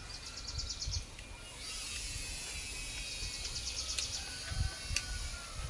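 Outdoor ambience: a rapid, evenly pulsed high chirping trill, about ten chirps a second, heard twice over a steady hiss of background noise. Two sharp clicks come near the end.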